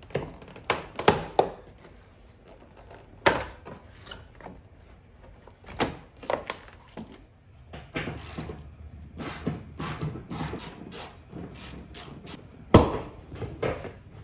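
Hand-work noise inside a car: scattered clicks, knocks and rubbing as wiring is pushed under plastic trim panels and the rear seat cushion is worked loose from its clips, with one sharp knock near the end.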